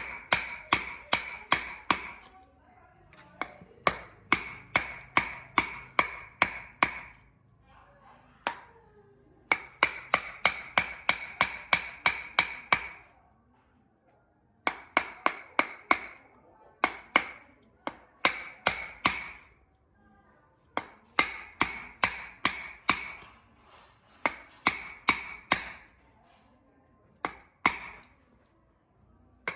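Runs of hammer blows on metal, about three a second, each strike with a clear metallic ring, broken by short pauses every few seconds.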